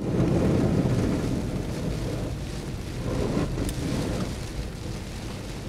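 Steady low rumbling noise of a car driving through a rainstorm on a wet street: road and rain noise, loudest in the first second and then easing a little, with a few faint ticks.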